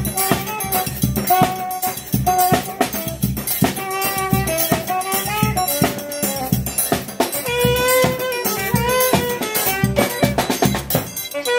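A saxophone plays a melody over a small band, with a drum kit's snare and cymbal and other percussion keeping a steady beat.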